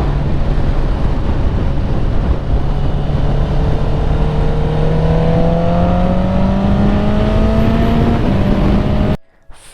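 Honda CBR650R inline-four through an Akrapovic exhaust, under way, its engine note climbing slowly and steadily as it pulls, over a heavy rumble of riding noise. There is a small step in pitch shortly before the sound cuts off abruptly about nine seconds in.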